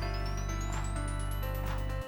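Background music with a steady beat and a high tone gliding upward.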